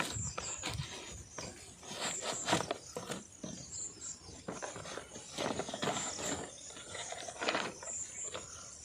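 Packaging of a gimbal being opened and handled: irregular rustling, crinkling and small clicks.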